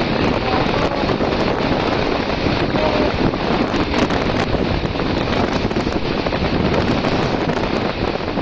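Steady wind rushing over the microphone of a moving motorcycle, with road and engine noise underneath.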